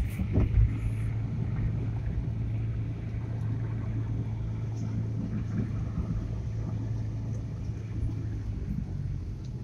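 Car driving on a road, heard from inside the cabin: a steady low engine hum over tyre and road rumble, with a couple of short knocks right at the start.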